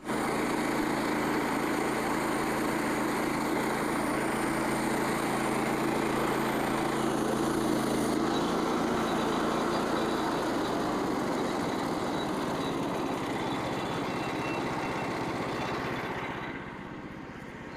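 Small engine of a Frontier OS27 portable bandsaw sawmill running steadily at speed. The sound changes about halfway through and drops noticeably in level shortly before the end.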